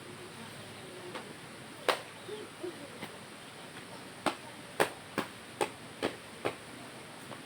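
A series of sharp chopping strikes from yard clearing, about seven, one near two seconds in and the rest coming quickly, roughly half a second apart, in the second half.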